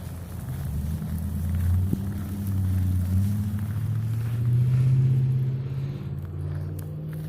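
A motor vehicle's engine running close by, its pitch rising and its sound building to a peak about five seconds in, then easing off.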